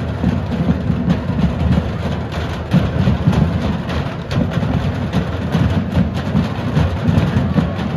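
High school marching band playing, with the drums beating out a busy rhythm under the band.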